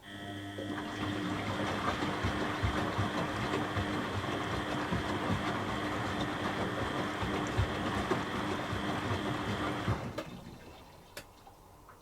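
Beko WTB841R2W washing machine moving water: a steady electric hum over rushing, gurgling water noise that switches on suddenly and cuts off after about ten seconds.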